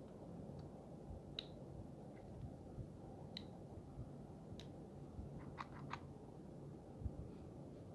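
Faint scattered clicks and ticks of a plastic hot glue gun and its packet of glue sticks being handled, about six in all, over a low steady hum.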